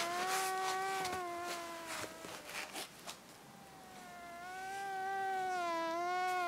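Mosquito whine sound effect: a steady nasal buzz that wavers slightly in pitch. It fades away after about two seconds and comes back, swelling, about four seconds in, with a few soft clicks in the gap.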